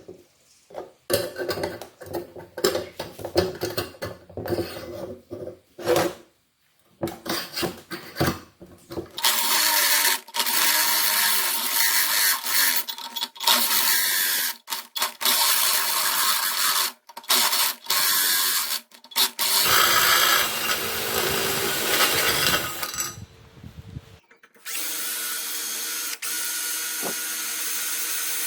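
Electric drill motor started and stopped in short bursts, then running under load for about ten seconds with a harsh, hissing noise and a few brief stops. After a short pause near the end it runs steadily again.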